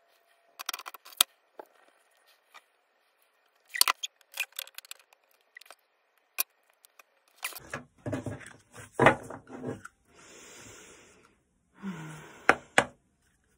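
A deck of oracle cards being handled on a wooden table: scattered sharp taps and clicks, then, from about halfway, rustling and sliding with a few knocks as the cards are handled and shuffled in the hands.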